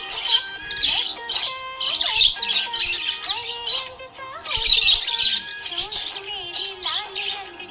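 Budgerigar chirping and warbling: a busy stream of quick, high chirps and wavering squeaky notes, with a short lull about four seconds in.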